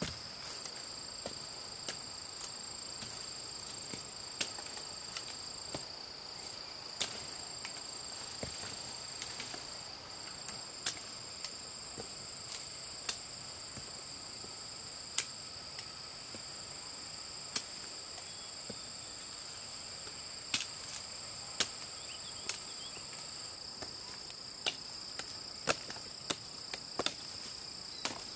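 Steady high-pitched insect chorus in two held tones, with irregular sharp knocks or taps scattered through it that come more often near the end.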